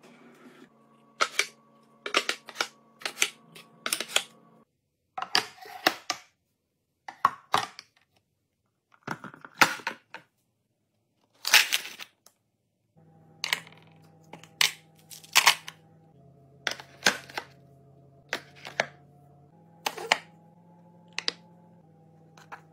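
Clusters of sharp clicks and wooden knocks as bamboo organizer boxes and toiletries are set into a cabinet drawer, with short gaps between them. Faint background music runs underneath at the start and again near the end.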